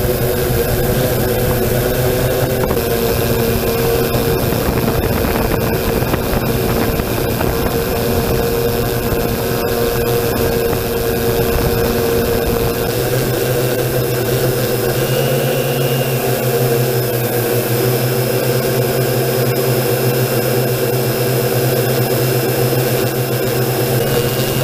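Multirotor drone's electric motors and propellers running steadily in flight, an even buzzing hum with a hiss of air above it. About halfway through, the lower tones of the hum shift a little in pitch.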